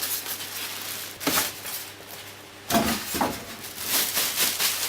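Packaging being handled while a small PC case is unpacked: bursts of rustling and scraping from the box and wrapping, about a second in, around three seconds in and again near the end.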